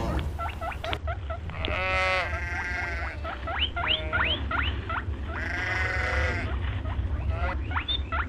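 A sheep or goat bleating: two long, wavering bleats, a few seconds apart. Between and around them runs a string of short, high, upward-sliding chirps, about two a second, over a steady low rumble.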